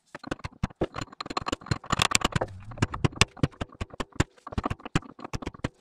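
Light tapping that drives a small part onto a van's driveshaft: a fast, uneven run of short sharp knocks, several a second.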